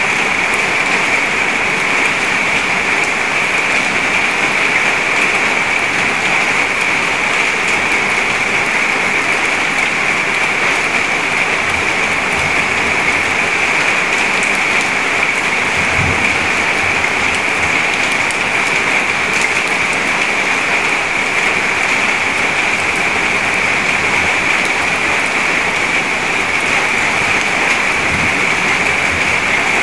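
Steady rain falling into a puddle, a dense patter of drops splashing on the water's surface.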